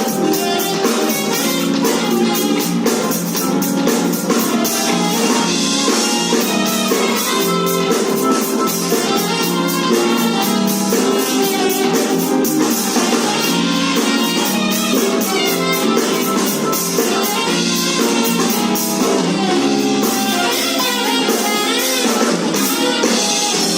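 Saxophone playing along to a backing track with a steady drum-kit beat and guitar.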